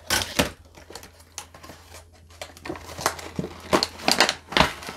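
Irregular clicks and taps of a plastic-and-diecast model truck being handled and turned on a display stand, with a cluster of clicks near the start and another about four seconds in, over a faint low hum.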